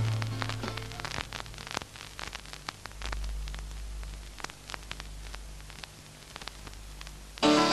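Vinyl record surface noise between tracks: a low hiss with scattered clicks and pops over a steady low hum. The last notes of one song die away in the first second, and the next song comes in with plucked strings just before the end.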